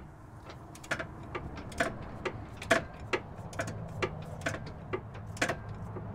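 A hand ratchet clicking as it runs a bolt into the rear upper control arm mount on the subframe: sharp metallic clicks, about two or three a second, slightly uneven.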